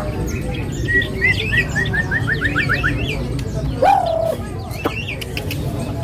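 White-rumped shama (murai batu) singing in full song: varied whistled phrases, with a run of short notes that speeds up about a second in and a lower held whistle past the middle.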